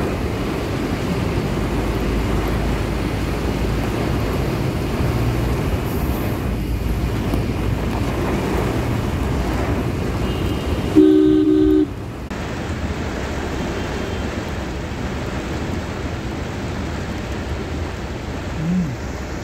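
Traffic on a rain-soaked road heard from inside a moving vehicle: a steady rush of tyres, rain and engine rumble. About halfway through, a vehicle horn honks once for about a second.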